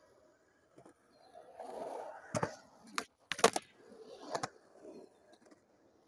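Skateboard rolling over concrete, its wheels rumbling as it passes close, with several sharp clacks of the board, the loudest about three and a half seconds in.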